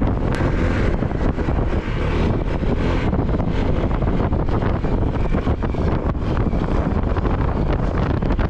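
Wind rushing over an action camera's microphone while riding a Honda ADV 160 scooter as it speeds up to about 40 km/h; the scooter's single-cylinder engine and road noise sit under the steady wind noise.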